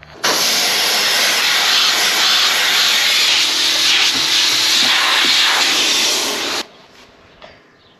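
Air hissing out steadily under pressure, starting suddenly and cutting off sharply after about six seconds.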